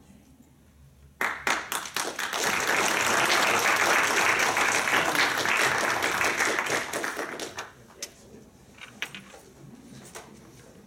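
Audience applauding: it starts suddenly about a second in, runs for about six seconds, then dies away to a few scattered claps.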